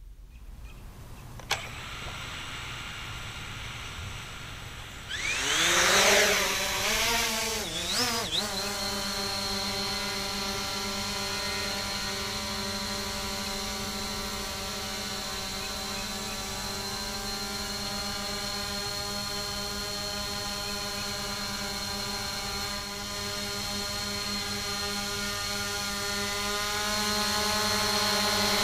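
SG-906 quadcopter's brushless motors spinning up with a rising whine about five seconds in, then the drone flying with a steady buzzing whine of its propellers, louder near the end.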